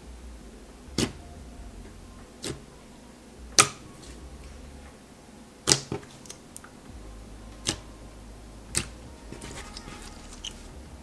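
Thick clear slime being pressed and kneaded by hand, giving sharp popping clicks as trapped air bubbles burst, about one every second or so, one much louder than the rest. Near the end come softer, quicker crackles as the slime is folded up.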